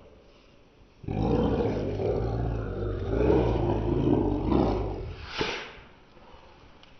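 Two dogs play-fighting: a long run of deep, drawn-out growling and snarling, slowed down, starting about a second in. It ends with one short, sharp cry about five and a half seconds in.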